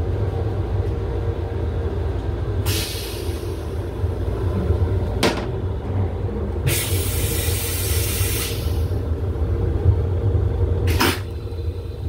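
Steady low rumble of a Metro-North M7 electric railcar running, heard from inside its small restroom. Two bursts of hiss: a short fading one about three seconds in and a longer, louder one from about seven to eight and a half seconds. There is also a sharp click about five seconds in and another near the end.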